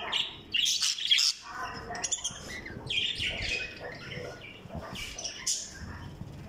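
Parrots calling with a series of short, harsh squawks and chirps.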